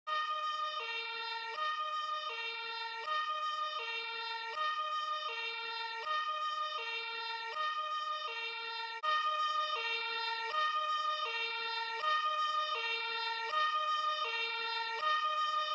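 Two-tone siren, its wail alternating evenly between a higher and a lower pitch about every three-quarters of a second. It gets a little louder about nine seconds in.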